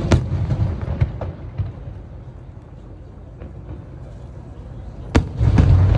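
Aerial fireworks going off: a sharp bang at the start with a crackle after it, then a second sharp bang about five seconds in followed by deep rumbling booms.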